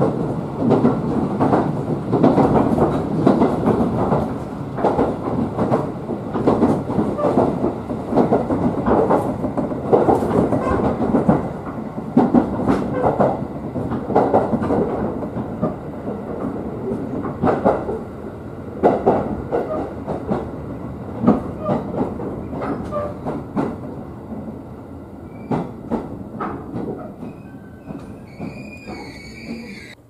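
Running noise of a 211 series electric train heard from inside the passenger car: a steady rumble with repeated knocks of the wheels over rail joints. It grows quieter over the last few seconds as the train slows, and a high squeal comes in near the end.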